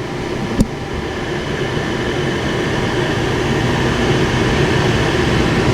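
Mr. Heater Big Maxx unit heater running: a steady rush of its blower fan and burners that grows slowly louder, with one sharp click under a second in. It is running normally, the igniter no longer staying on.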